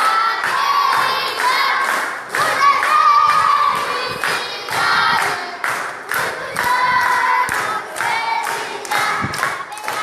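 A group singing a lively children's song, with clapping or a beat about twice a second.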